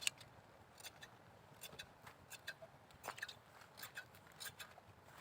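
Shears snipping wool from a sheep: a string of short, sharp snips at an uneven pace, about two or three a second.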